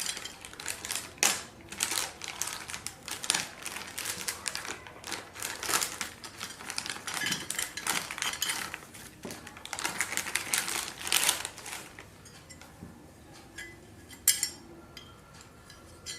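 Kit contents being unpacked and handled by hand: a dense, irregular run of rustling and clicking for about twelve seconds, thinning to a few scattered clicks near the end.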